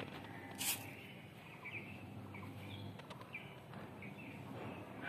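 Birds chirping, short scattered calls every second or so over a low steady background hum, with a brief hiss about half a second in.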